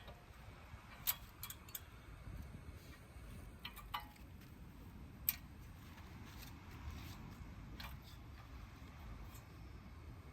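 Scattered light metallic clicks and knocks of hand tools during brake work on a car, about seven in ten seconds at uneven spacing, over a low steady rumble.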